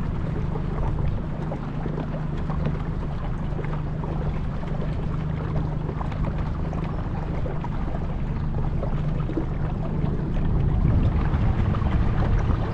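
A small motor boat's motor running steadily under way, a low hum, with wind and water noise over it. It grows a little louder near the end.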